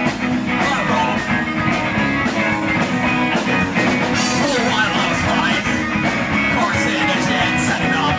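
Punk rock band playing a song live: electric guitar over a steady, driving drum beat.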